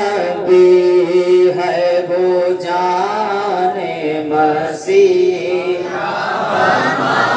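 A man singing a naat, an Urdu devotional poem in praise of the Prophet, unaccompanied into a handheld microphone, in long held notes that bend and ornament in pitch.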